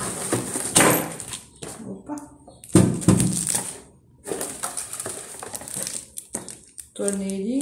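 Cardboard box and plastic wrapping being handled during unboxing: irregular rustling and crinkling with small clatters, and a loud knock about three seconds in.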